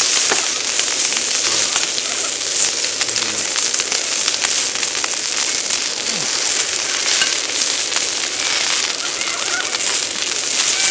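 Wagyu beef frying, a steady sizzle thick with fast crackles of spitting fat.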